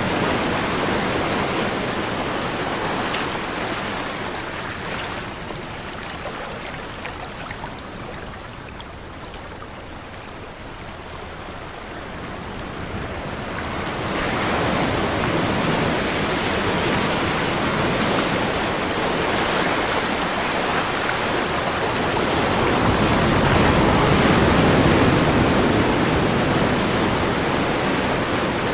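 Ocean waves washing on a shore: the surf fades away to a lull near the middle, then swells back up and breaks again.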